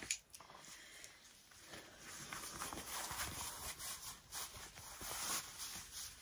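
Calfskin leather glove being pulled onto a hand and handled: a run of irregular soft rustles and small taps.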